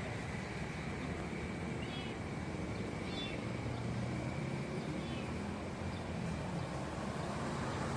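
Steady low background rumble, with two faint short high-pitched animal calls about two and three seconds in.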